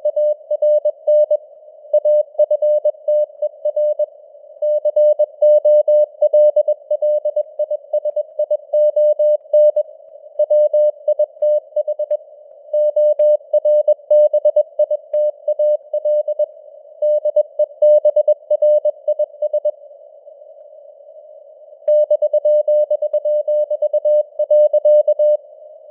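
Morse code (CW) sent at 21 words per minute as a single mid-pitched beeping tone, keyed in dots and dashes over a steady narrow hiss of simulated radio noise. The keying pauses for about two seconds around three quarters of the way through, then stops again shortly before the end, leaving only the hiss.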